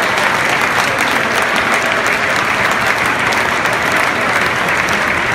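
Large football stadium crowd applauding at full time: dense, steady clapping from many hands.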